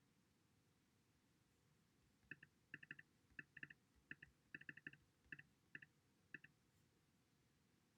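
A run of small, sharp clicks in irregular singles, doubles and triples, starting about two seconds in and stopping a little before the end.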